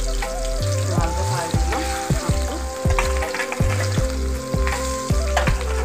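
Snakehead fish steaks sizzling as they fry in hot oil in a kadai. Background music with a steady beat plays under the frying.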